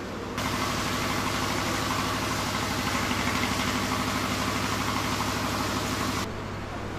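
Storm noise: heavy rain and wind, an even hiss that cuts in abruptly about half a second in and stops abruptly near the end, over a steady low hum.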